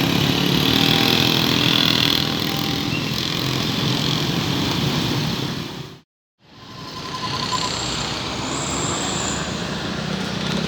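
A train passing over a railway level crossing, its rumbling rail and wheel noise loud and steady, with the crossing's two-tone warning siren faintly alternating beneath. The sound fades out about six seconds in and fades back in on similar passing noise.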